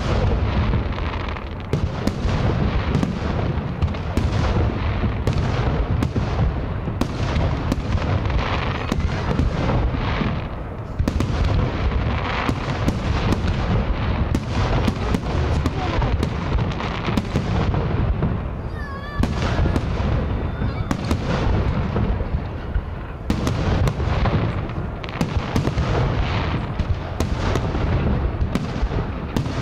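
Aerial firework shells bursting in quick succession: deep booms and sharp cracks over a continuous rumble. A brief wavering whistle rises through it about two-thirds of the way in.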